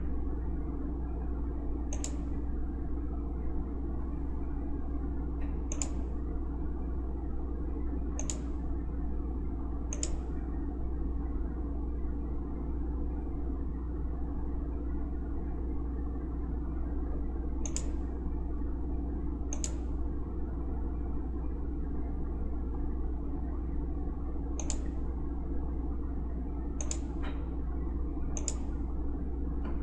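About ten sharp, single computer mouse clicks at irregular intervals, over a steady low hum.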